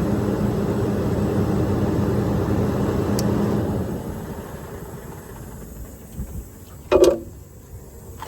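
Service truck machinery running at a steady hum, then winding down and stopping about four seconds in. A single sharp clunk follows near the end.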